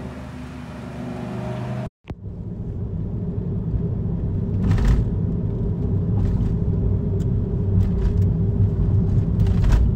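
Road and engine rumble heard from inside a moving car's cabin. It drops out suddenly for a moment about two seconds in, then comes back heavier, with a brief louder noise around the middle and another near the end.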